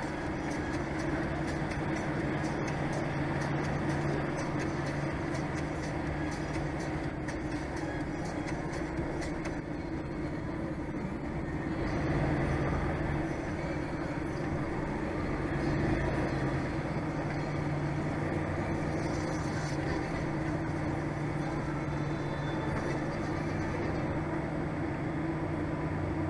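DAF XF 480 truck's PACCAR MX-13 straight-six diesel running steadily under way, a low hum with road noise heard from inside the cab. It swells a little about halfway through.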